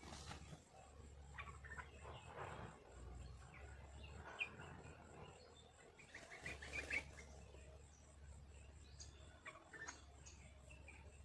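Small birds chirping faintly: scattered short, high chirps, with a quick run of chirps about six and a half seconds in.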